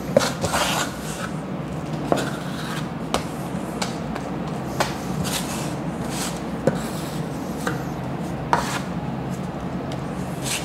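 Metal putty knife scraping and tapping on a mixing board as it folds plaster powder into wet joint compound; irregular strokes, some with a short gritty scrape.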